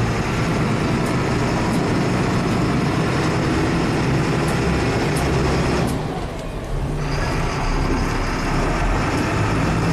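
Stewart & Stevenson M1078 LMTV military truck's Caterpillar 3116 turbo-diesel running steadily while driving, heard from inside the cab as a dense drone of engine and drivetrain. About six seconds in, the sound drops for about a second and then picks up again.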